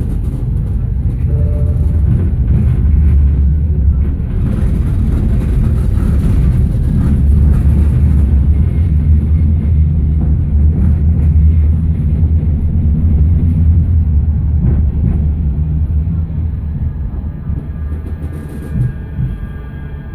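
Manchester Metrolink tram heard from inside the car while moving, its wheels and running gear giving a steady low rumble. It grows quieter in the last few seconds, with a faint steady whine coming in.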